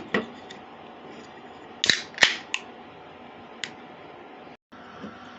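Beer can being cracked open: two sharp metallic clicks about two seconds in, the first with a short hiss, then a couple of faint ticks.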